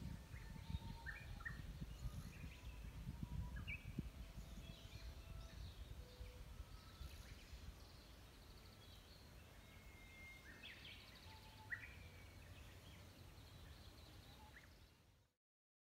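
Quiet outdoor ambience: scattered faint bird chirps over a low, gusty rumble, fading out to silence near the end.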